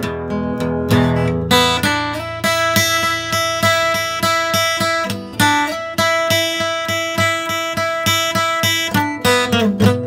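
Background music: acoustic guitar playing in a steady rhythm, its chord changing about two seconds in and again near the end.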